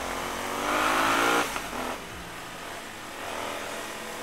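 Motorcycle engine revving hard, its pitch rising for about a second before the throttle is shut off abruptly. The engine swells again more softly a little later.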